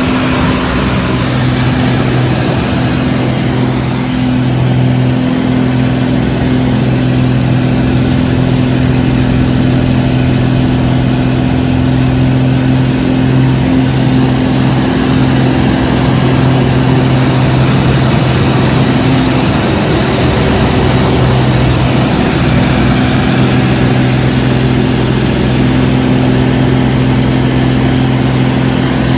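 Pitts aerobatic biplane's piston engine and propeller running with a steady drone, heard from inside the cockpit, with wind rush over it.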